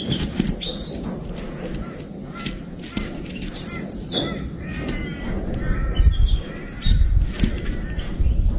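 A young kestrel calling: short, high, squeaky notes in several small groups, with a run of lower pitched calls about halfway through. A low rumble under the calls grows louder over the last two or three seconds.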